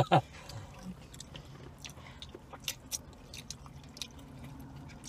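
Close-miked chewing and mouth sounds of a man eating a piece of rotisserie chicken, with small wet clicks scattered through.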